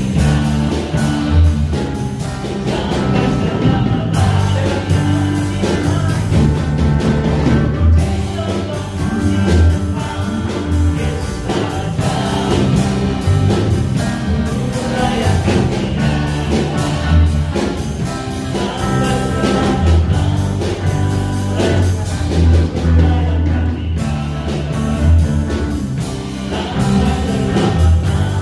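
Live praise-and-worship song: a singer sings into a microphone over a band with acoustic guitar and electric bass.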